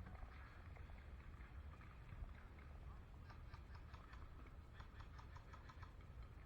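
Faint bursts of distant airsoft gunfire: two short runs of rapid, evenly spaced clicks, about three and five seconds in, over a low rumble.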